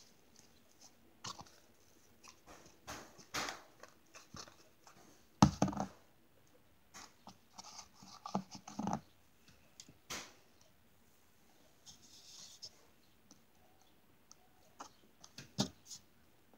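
Homemade slime being kneaded and squeezed by hand, making irregular squishing and clicking sounds, with a louder thump about five seconds in and a few sharper knocks later.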